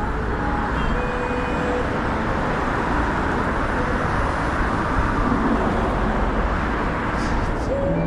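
Steady city road traffic: cars and buses running past on a busy multi-lane street, a dense rushing noise that swells a little through the middle as vehicles pass close by.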